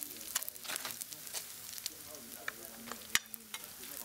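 Hot oil sizzling and crackling in a wok as a metal spatula stirs and scoops out fried food, with a sharp click about three seconds in.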